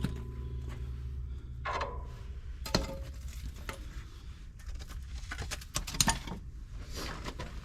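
Metal hand tools clinking and knocking on a truck's front-end track bar ball joint while it is worked loose, with a few sharp knocks, the loudest about three seconds in and six seconds in, over a low steady hum.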